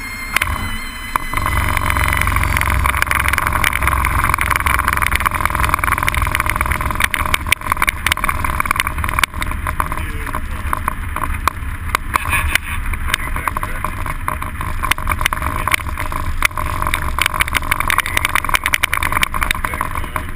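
Light aircraft's piston engine and propeller heard from inside the cockpit, brought up to full power about a second in and then holding a steady loud drone with rushing noise, as on a takeoff roll. Many short rattles and knocks run through it.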